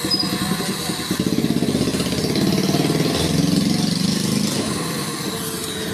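A motor running with a rapid, even pulsing beat. It grows louder about two seconds in and eases off near the end.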